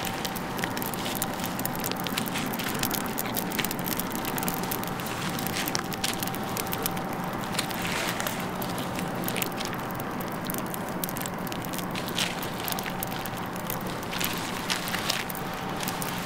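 Fire crackling and popping in a metal barrel, with a steady hum underneath.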